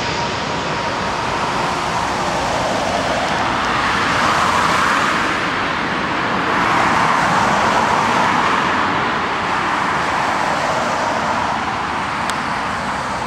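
Road traffic rushing past on a dual carriageway, a steady roar of tyres and engines that swells twice as vehicles go by and eases near the end.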